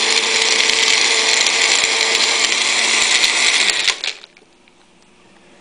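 Magic Bullet blender running steadily and loudly, blending cake, chocolate bunny and milk, then switched off about four seconds in, its motor winding down.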